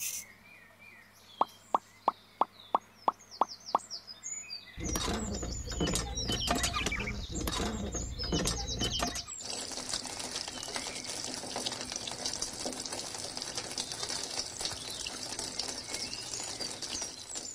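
A thin stream of water splashing steadily into a small plastic pool from the spout of a miniature hand pump, starting about nine seconds in. Before it come a run of eight quick sharp clicks and then a few seconds of low rumbling with knocks, with bird chirps behind.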